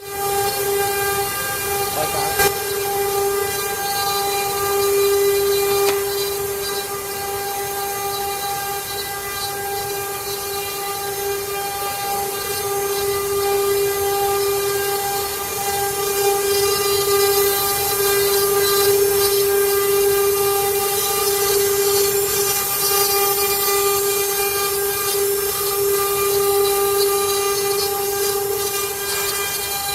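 CNC router spindle running and cutting wood: a steady high whine held at one pitch, with a hiss over it. A single sharp click comes about two seconds in.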